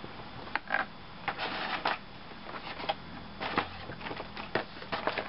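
Irregular clicks, taps and short rustles of a model train set's power cords and plastic parts being handled and packed into their cardboard box.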